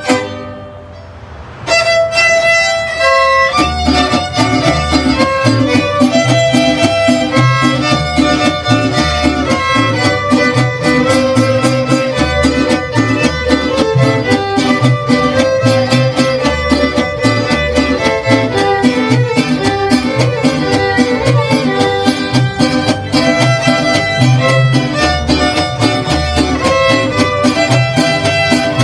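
Fiddle music with a steady beat, starting after a short lull about two seconds in.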